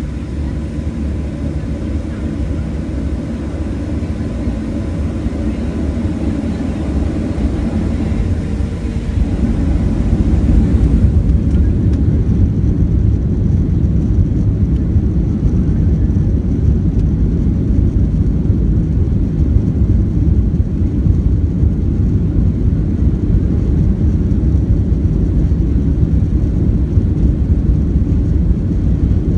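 Boeing 737 cabin noise heard from a window seat over the wing while the jet taxis: a steady low engine rumble that swells over the first ten seconds, then holds loud and even.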